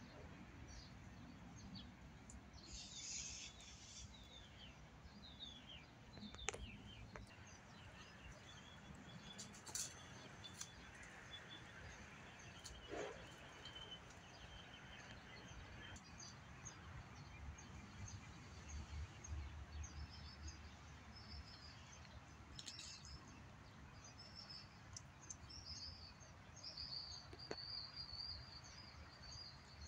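Faint birds chirping and calling in woodland, with a quick run of high chirps near the end, over a low background rumble and a few faint clicks.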